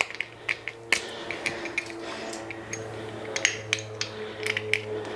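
Plastic dust caps being pulled off a metal bidet T-valve fitting by hand: a string of small, irregular clicks and taps as the caps and fitting are worked in the fingers.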